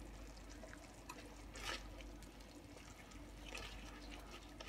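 Silicone spatula stirring a thin, simmering sauce in a frying pan: faint liquid sloshing with light scrapes against the pan, one a little louder about a second and a half in.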